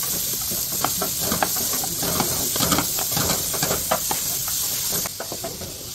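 Sliced vegetables sizzling in hot oil in a nonstick frying pan, tossed with two wooden spatulas that click and scrape against the pan. The hiss drops off about five seconds in.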